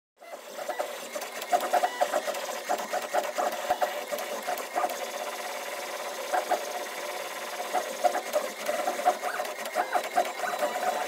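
An FDM 3D printer printing, its stepper motors whirring in quick, constantly shifting tones as the print head darts back and forth laying down filament.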